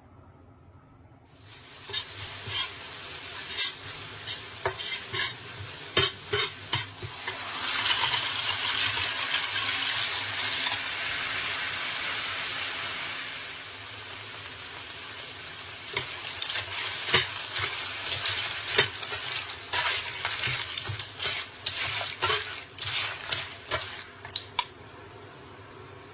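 Food sizzling as it fries in oil in a pan, while a spatula scrapes and clicks against the pan as it is stirred. The sizzle starts about two seconds in, is loudest around the middle, and dies away near the end.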